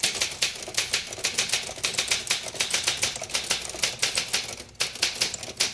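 Typewriter keys clacking in a quick, irregular run of strikes as text is typed out, with a brief pause about four and a half seconds in.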